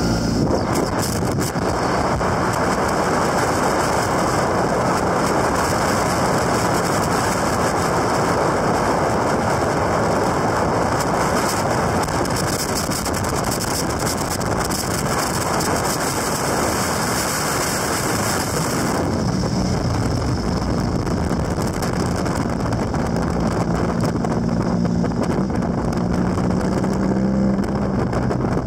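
Motorcycle riding at speed: the engine runs steadily under a heavy rush of wind over the microphone. A bit past halfway the wind noise eases and the engine's steady low hum comes through more clearly.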